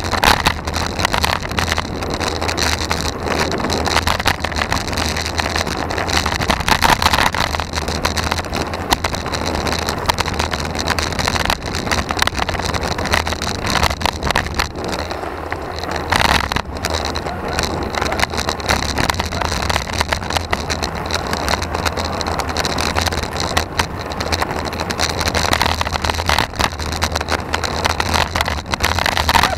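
Steady wind rumble on the microphone of a camera mounted on a road bike in motion, mixed with tyre-on-asphalt noise and small rattles of the bike.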